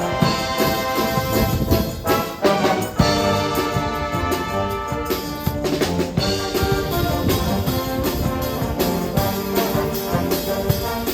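Music led by brass instruments: sustained trumpet- and trombone-like notes changing every second or so over a drum beat.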